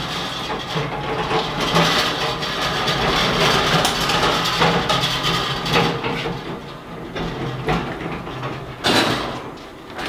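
A heavy steel brewing stand on castors, loaded with stainless steel pots and a control panel, being rolled and manoeuvred across the floor. The castors rumble and the metal frame and pots rattle and clatter throughout, with a sharper knock near the end.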